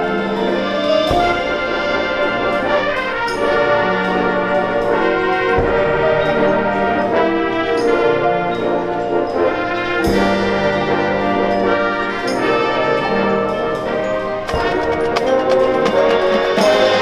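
High school marching band playing its field show, with the brass to the fore in held chords. Loud percussion hits come about every four and a half seconds.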